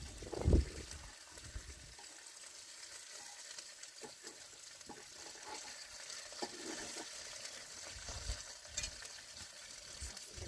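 Food sizzling in a shallow pan over an open wood fire, with a steady hiss and a spatula stirring and scraping in the pan, making a few short clicks. A brief low thump about half a second in is the loudest sound.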